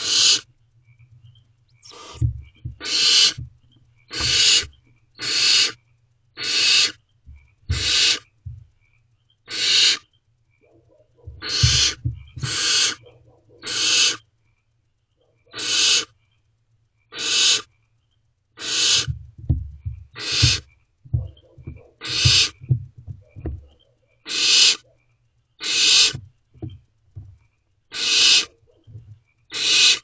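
Barn owlets giving their rasping, hissing 'snore' calls, the food-begging call of barn owl chicks, each about half a second long and repeated every second or so. Low bumps and scuffles from the owlets moving in the nest box come in clusters, over a faint steady hum.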